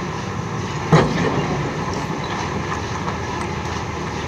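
Volvo 480 tracked excavator's diesel engine running steadily while the machine works, with a single sharp knock about a second in.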